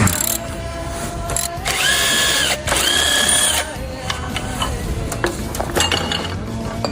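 Power tool spinning in two short runs, about two and three seconds in, each rising to a steady whine for under a second, amid ratchet clicks and metal clatter from engine teardown work.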